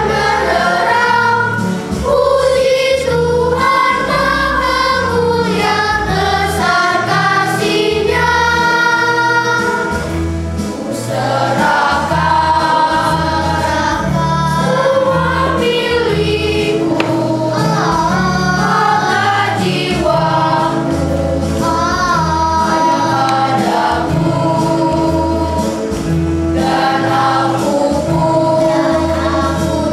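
Children's choir singing a worship song together over instrumental accompaniment with a bass line moving underneath.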